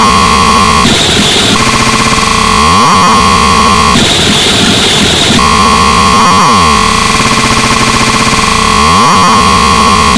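Loud, harsh, heavily distorted electronic noise in a repeating pattern. A steady buzzing tone twice switches up to a higher, shriller tone for about a second, and swooping sweeps recur in the low end about every three seconds.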